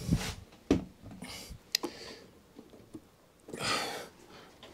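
Light metal clicks and knocks from a lawn mower's variator pulley assembly being worked by hand, with a dull thump at the start and a couple of short hissing noises. The assembly is seized and will not move.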